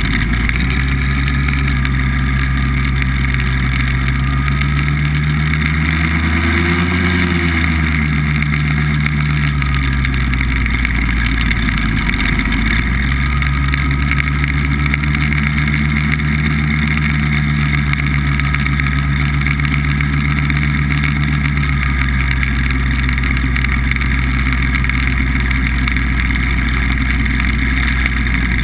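BBV2+2 hovercraft's engine and fan running under way, loud and continuous. The engine note rises to a peak about seven seconds in and falls back, then holds steady.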